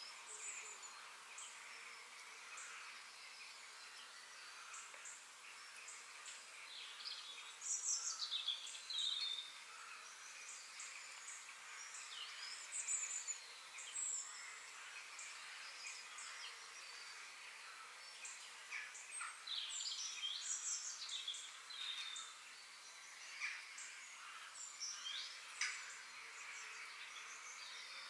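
Woodland birdsong: several small birds chirping and trilling in short, quick phrases over a steady, faint background chorus, with the busiest bursts about a third of the way in and again past the middle.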